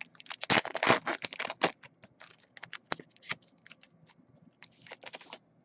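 Foil wrappers of 2016 Topps Finest trading-card packs crinkling and tearing as the packs are ripped open by hand, in quick crackly rustles that thin out after the first couple of seconds.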